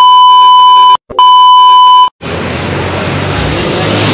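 Colour-bars test-tone beep: a loud, steady, high electronic tone that breaks off briefly and resumes, then cuts off about two seconds in. From there, street and traffic noise with wind.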